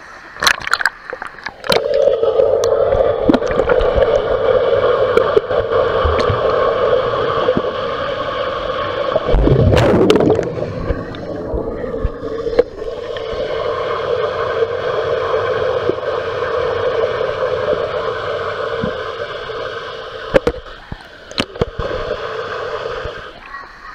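Muffled underwater sound picked up by an action camera in a swimming pool: a steady droning hum with gurgling water, scattered knocks against the camera, and a louder rush of water about ten seconds in.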